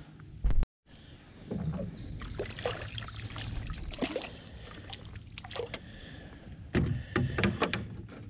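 Water splashing beside a small boat, with knocks and clatter against the hull, as a hooked fish is fought at the surface and lifted aboard. A sharp knock comes about half a second in, and the loudest splashing comes about seven seconds in.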